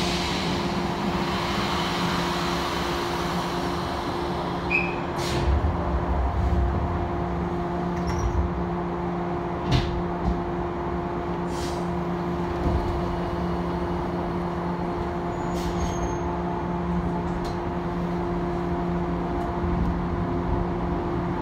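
Steady electrical hum and rumble inside an electric commuter train carriage, holding one pitch, with a few scattered clicks and knocks.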